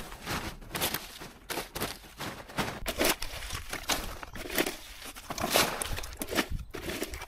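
Cut twigs and brush crackling and rustling as a long-handled grabber scoops them up and drops them into a woven builder's bag. The sound is irregular, made of many short sharp crackles and scrapes.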